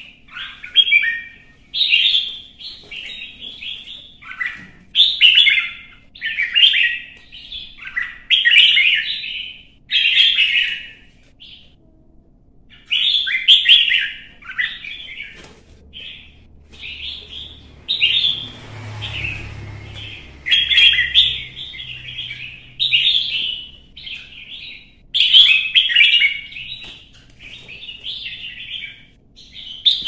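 Red-whiskered bulbul singing a fighting song: quick bursts of loud, warbling whistled phrases, one after another with short breaks. A low rumble sits under the song about halfway through.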